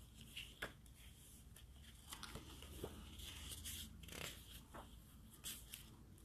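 Faint rustling of paper being handled and leafed through, with scattered small scrapes and clicks.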